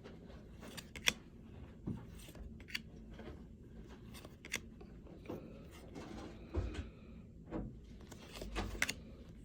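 Trading cards and their pack being handled: scattered light clicks, taps and rustles at an uneven pace, with no regular rhythm.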